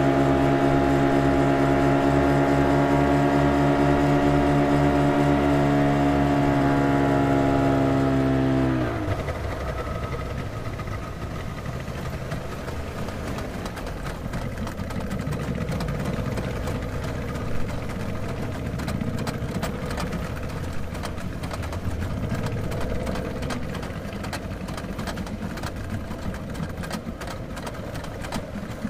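Motor cruiser's engines running at speed with a steady drone; about nine seconds in the note drops in pitch and gives way to a rougher, noisier running sound.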